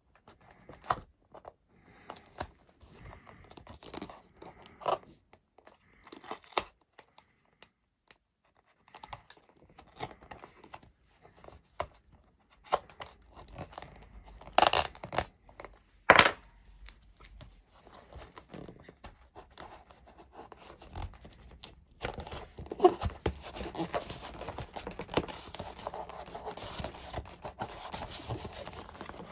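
Adhesive tape being worked on an EPP foam model-plane fuselage: a scalpel blade scraping and ticking as the tape is trimmed, two louder tearing sounds about halfway through, then a steady rustling rub from about two-thirds in as fresh tape is laid and pressed down over the joint.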